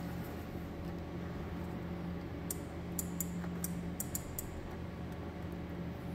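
Steady low hum of a semi-automatic carrier-tape taping machine standing powered. About halfway through, a quick run of about eight light clicks comes over two seconds.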